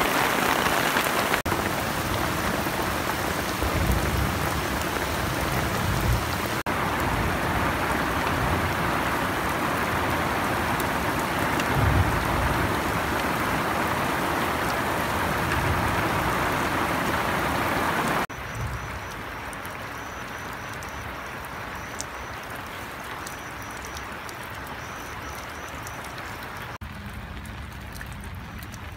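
Steady rain falling, a dense even hiss. About two-thirds of the way through it drops suddenly to a softer rain.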